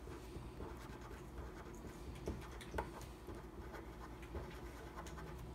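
Pen writing on paper: faint, irregular scratching strokes as words are handwritten, with a couple of sharper ticks.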